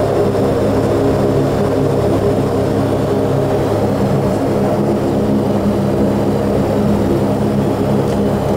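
A Saab 340's two General Electric CT7 turboprop engines and propellers running, heard from inside the cockpit. They make a steady, even drone whose tone shifts slightly about halfway through.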